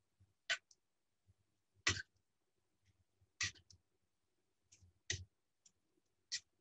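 Metal tongs knocking against a stainless steel pot while stirring pasta: five short clinks spaced a second or so apart, with near silence between them.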